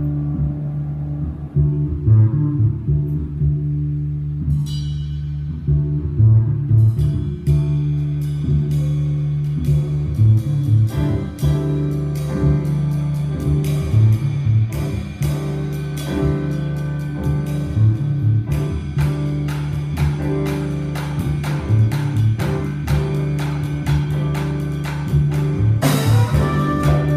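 Latin jazz ensemble playing live: grand piano over a repeating low bass line, with drum kit and cymbals coming in about five seconds in and playing steadily after that. Near the end the cymbals get brighter and busier.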